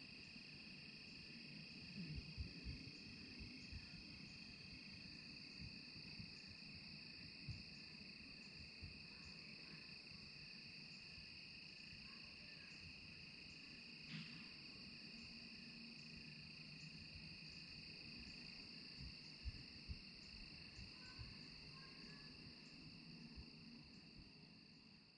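Faint evening insect chorus of crickets trilling steadily at several pitches, one of them dropping out about five seconds in, over a faint low rumble.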